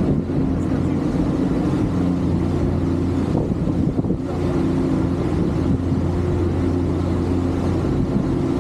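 Passenger ferry's engines running with a steady low drone, with wind buffeting the microphone.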